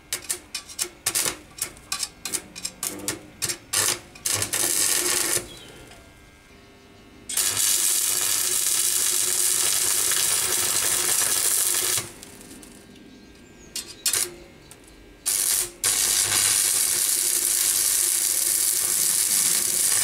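Stick (arc) welder at work, joining a spanner to a steel disc. First comes a quick string of short crackling bursts as the arc is struck and tacks are made. Then come two steady crackling, sizzling weld runs of several seconds each, the first from about 7 to 12 seconds in and the second from about 16 seconds in.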